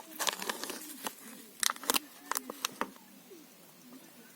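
Sharp clicks and knocks of cooking utensils against cookware, a quick run of them in the first three seconds, the loudest about two seconds in, then only a few faint ones.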